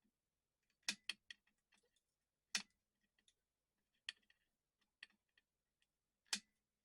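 About half a dozen sharp, light clicks and taps at irregular intervals over near silence. They sound like small tools or parts being handled during work on a pocket radio's circuit board.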